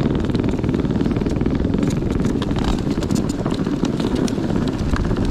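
Plastic sled sliding and scraping over snow as it is towed behind a homebuilt electric tracked snow bike: a steady, low-heavy rushing noise with many scattered clicks and knocks.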